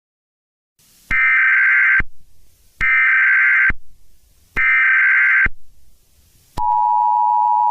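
Emergency Alert System header tones: three bursts of warbling data tones, each about a second long and a second apart. Near the end they are followed by about a second of the steady, lower two-tone EAS attention signal, which announces a broadcast alert.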